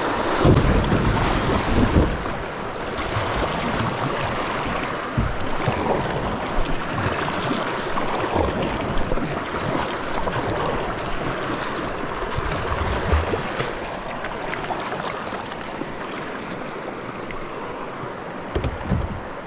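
Flowing river water with wind gusting on the microphone, making several low thumps in the first two seconds and again near the end.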